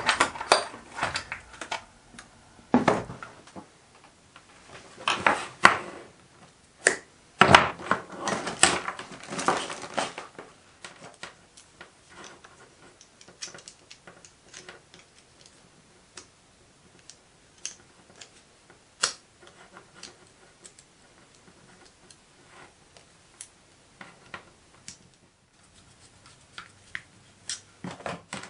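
Short clicks, taps and light metallic knocks from hand work on small hardware and tools. They are dense and louder through the first ten seconds, then thin out to sparse light ticks and clicks as a UK mains plug is wired onto a cable.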